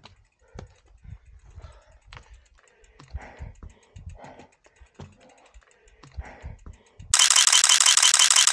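Scattered light clicks and soft knocks, like gear being handled. Near the end a bicycle freehub starts ratcheting loudly: a fast, even buzz of clicks from the rear hub as the wheel freewheels.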